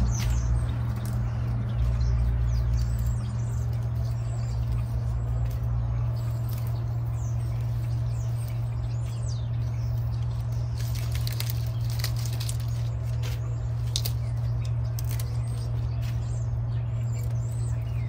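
A steady low hum, with small birds chirping in the background and brief rustling and snapping of pepper plants being picked by hand around the middle.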